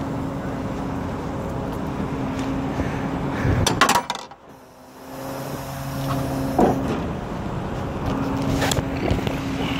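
Tow truck's engine idling with a steady hum. A cluster of sharp clattering knocks comes a little before halfway, the sound drops away briefly just after, then the idle hum returns with a few more single clicks.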